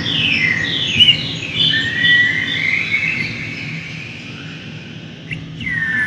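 Experimental electronic music: chirping, sliding high tones that swoop down and then glide up, like synthetic birdsong, over a low steady hum. It thins out after about four seconds, then a long held tone comes in near the end.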